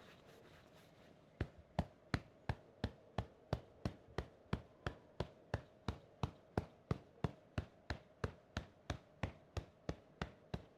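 Hand tapping gently on the inner arm in an even rhythm of about three light pats a second, starting about a second in: self-massage patting along the arm.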